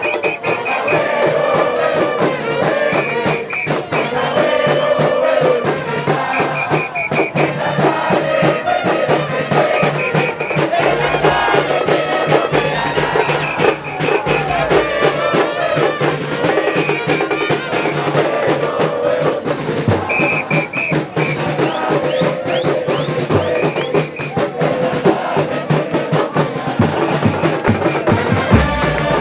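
A football supporters' band in the stands: drums beating a steady rhythm with brass playing over it and the crowd chanting along.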